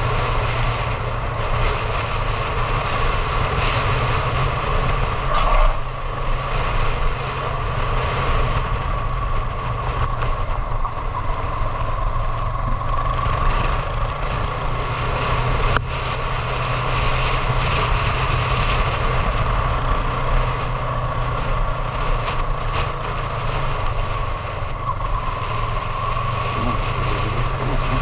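Motorcycle engine running at a steady cruise, mixed with wind rushing over the camera microphone. A sharp click comes a little past halfway and another later on.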